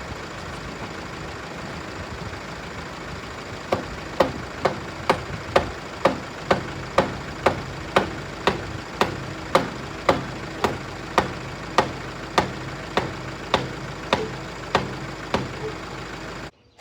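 Tractor engine idling steadily. About four seconds in, an evenly paced run of sharp knocks begins, roughly two a second, and goes on until shortly before the end.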